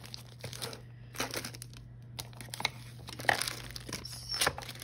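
Packaging crinkling and rustling as it is handled, in short, uneven crackles, with a couple of sharper ones in the second half.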